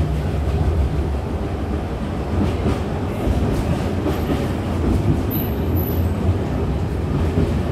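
V3A-93 articulated tram under way, heard from on board: a steady rumble of wheels on the rails and running gear, with faint clicks over the track.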